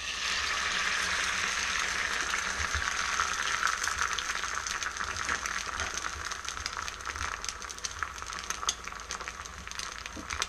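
An egg frying in a hot, oil-sprayed Lodge cast iron skillet: a steady sizzle full of small popping crackles. It starts as the egg hits the pan and eases off slowly.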